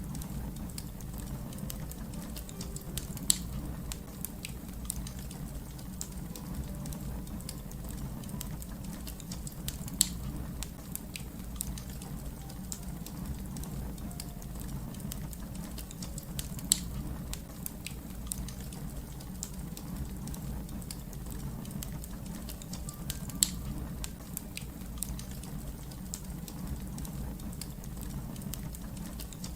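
Wood fire crackling steadily over a low rumble, with many small ticks and a few louder sharp pops.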